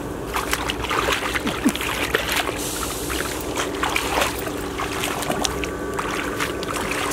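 Hands scooping and churning through shallow muddy water: a run of small, irregular splashes and squelches, over a steady low hum.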